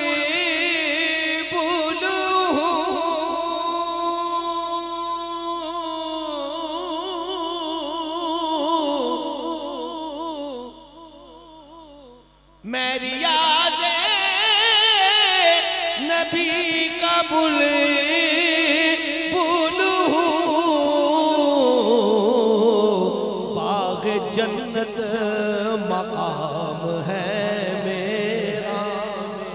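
A man singing a naat unaccompanied into a microphone, drawing out long held notes with heavy vibrato and melismatic turns. The voice breaks off briefly about eleven seconds in, then comes back louder and higher before working its way down.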